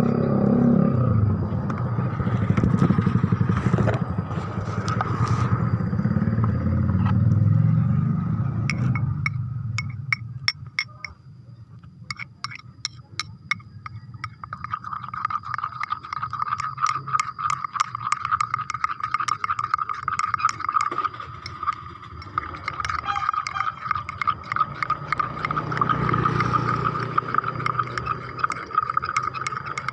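A motor vehicle passes, loud for the first nine seconds or so and then fading. Then come rapid clicking and light scraping over a steady high tone, and a second vehicle swells and fades near the end.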